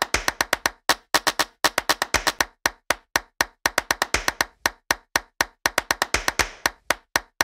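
Sharp clap-like clicks in quick, uneven succession, several a second, each cut off short with silence between.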